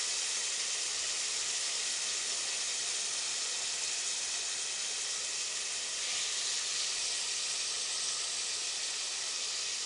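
Thin slices of marinated beef frying in hot oil in a nonstick pot: a steady sizzle.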